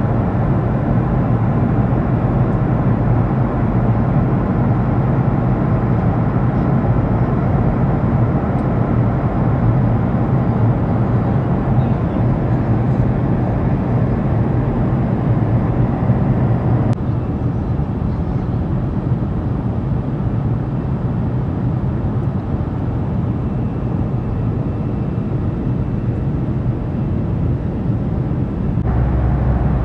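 Steady noise of a jet airliner's engines and rushing air heard inside the cabin in flight, with a strong low hum. The level steps down slightly about halfway through and comes back up near the end.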